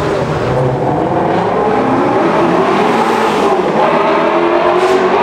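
A sports car engine revving hard inside a road tunnel, its sound echoing off the walls, with the tyres spinning up smoke.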